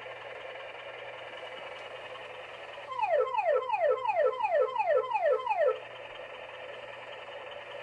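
Toy fire engine's electronic siren: a steady electronic tone, broken from about 3 s in by a rapid yelp of about eight quick falling sweeps over roughly three seconds, then steady again.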